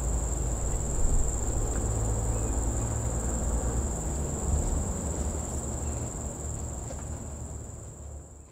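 Steady high-pitched chirring of insects, with a low rumble underneath. Both fade out near the end.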